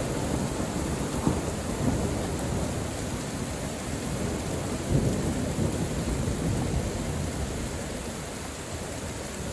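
Steady rain with rolling thunder, the deep rumble swelling about a second in and again around five seconds, then easing toward the end.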